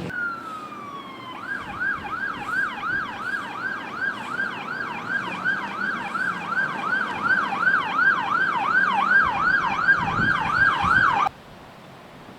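Emergency vehicle siren: a falling wail, then a fast yelp sweeping up and down about two and a half times a second. It grows louder and cuts off suddenly near the end.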